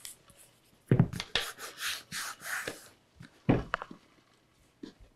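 Tape being pulled off its roll: about two seconds of crackly rasping, between two dull knocks on the workbench, one about a second in and one a little after three seconds.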